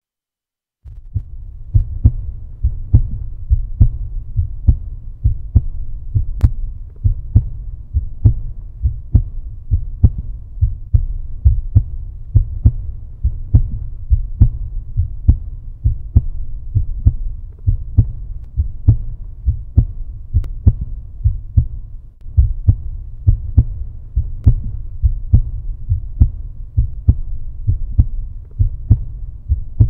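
A heartbeat: a steady, regular run of low thumps, starting about a second in.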